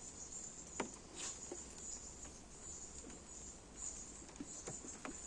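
Insects chirring in a steady high-pitched drone that swells and fades, with a few faint clicks.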